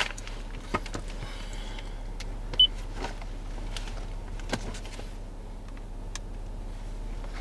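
Inside a stationary car's cabin: a few scattered sharp clicks and light knocks over a steady low hum, with one short high beep about two and a half seconds in.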